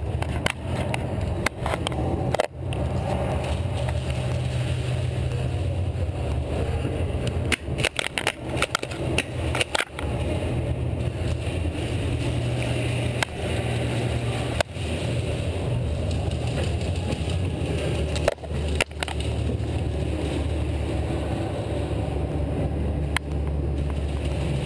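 Steady low rumble with sharp knocks and clicks scattered every few seconds, from a player's gear and footsteps as he moves on foot.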